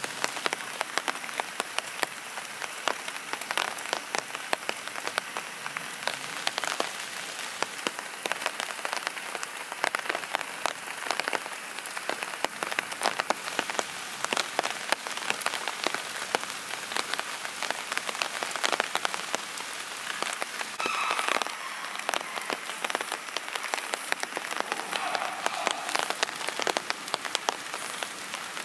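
Steady rain, with a dense stream of individual drops ticking sharply on a surface close by.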